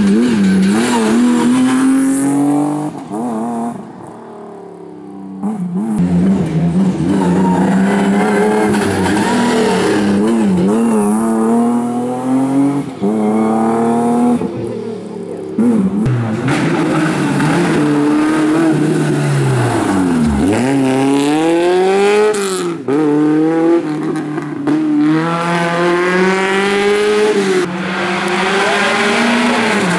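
Competition cars' engines revving hard up the climb, the pitch rising in repeated sweeps and dropping back at each gear change, with tyres squealing at times. A short lull comes about four seconds in, and around twenty seconds in the engine note dives low and climbs again.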